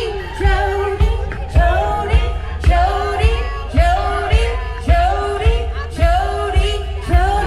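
A pop song with a singing voice over a steady drum beat, the low beat hitting about once a second.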